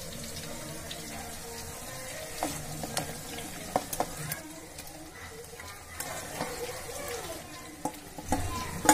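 Gravy boiling with a steady sizzle while marinated chicken pieces are spooned in from a steel bowl. A steel spoon clinks against the bowl and pot several times, loudest just before the end.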